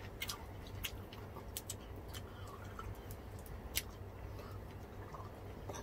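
Faint, irregular crisp clicks and crunches of people chewing crispy deep-fried pork skin (bagnet and crispy pata) and handling it, the sharpest a little before 4 s in, over a low steady hum.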